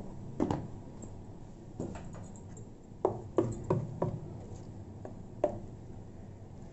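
Steel spoon stirring thick semolina idli batter in a stainless steel bowl, mixing in salt, clinking against the bowl several times, with a quick run of four clinks about three seconds in.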